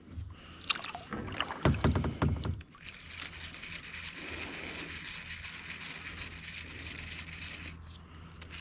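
Splashing and knocks at a kayak as a hooked bass is brought in, loudest about two seconds in. After that comes a steady high hiss.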